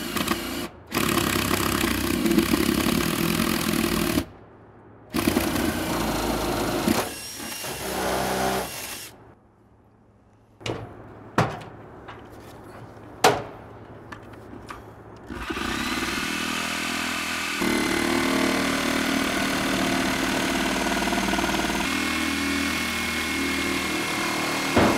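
Cordless drill with a paddle bit boring a starter hole through the roof deck, in several runs with short pauses. After a few sharp clicks and knocks, an electric saw runs steadily from a little past the middle onward, cutting the round ceiling opening.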